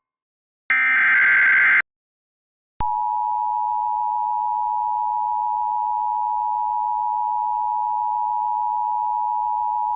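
Emergency Alert System broadcast tones. First comes a burst of about a second of the SAME header's digital data warble. After a one-second gap, the EAS two-tone attention signal sounds as a steady, unchanging dual tone about seven seconds long, which marks the start of an emergency warning.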